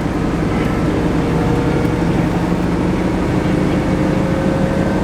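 Diesel engine of harvest machinery, a tractor or combine, running steadily under load, its hum creeping up slightly in pitch.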